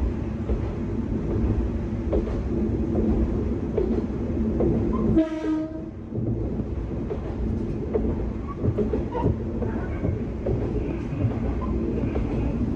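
Kanto Railway 2000-series diesel railcar running along the line, its engine rumbling steadily and its wheels clicking over the rail joints. About five seconds in, the train's horn sounds once, briefly.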